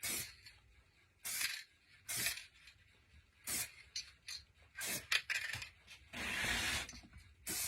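Aerosol spray can of chrome silver paint, fitted with a soft-spray nozzle, hissing in short bursts about a second apart, then one longer spray of about a second near the end.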